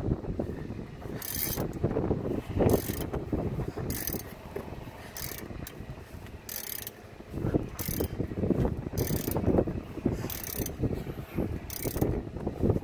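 Hand ratchet wrench worked in repeated strokes, clicking about once a second, as it tightens a bolt in the brake rotor's threaded hole to jack the seized rotor off the hub.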